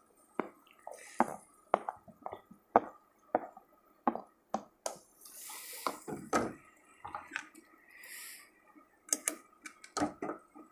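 A metal spatula knocks and scrapes irregularly against a pan as chopped ripe banana and crushed peanuts are stirred into hot ghee. A few short hisses of sizzling come in around the middle.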